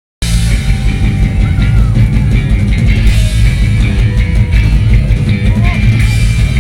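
Live rock band playing loudly: electric guitar, bass and drum kit. The sound cuts in abruptly just after the start.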